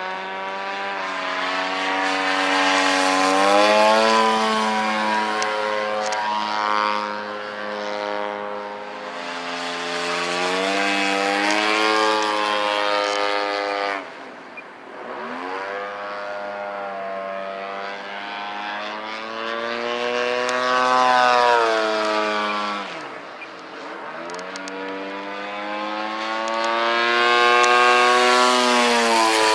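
Radio-controlled aerobatic propeller plane flying overhead, its motor and propeller droning steadily with the pitch rising and falling as it manoeuvres. The pitch drops sharply twice, about halfway and around two-thirds of the way through, each time with a brief dip in loudness.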